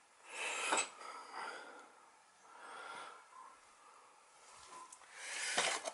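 A person breathing close to the microphone: a few soft, noisy breaths, the longest near the end.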